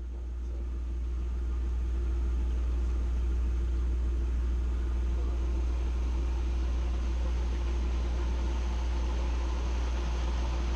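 Narrowboat engine idling: a steady low rumble with a faint hum above it, swelling over the first couple of seconds and then holding steady.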